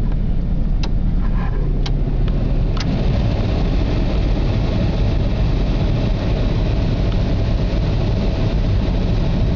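Chevrolet Astro van engine idling steadily. A few light clicks come in the first three seconds, then a steady rush of air joins: the heater blower is switched on to test for heat after a new heater control valve.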